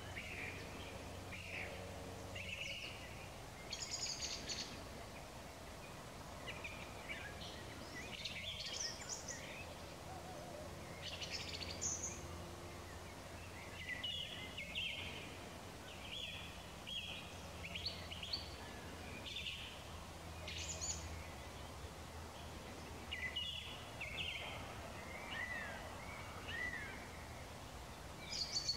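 Evening songbirds singing, with short chirped and whistled phrases every second or two.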